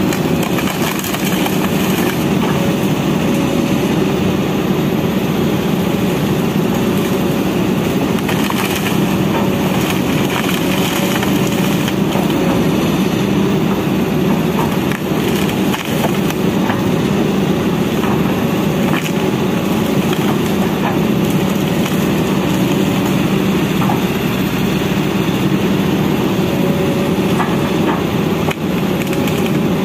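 Kobelco crawler excavator's diesel engine running steadily under load while its bucket tears into a bamboo thicket, with scattered sharp cracks and snaps of splintering stems and branches.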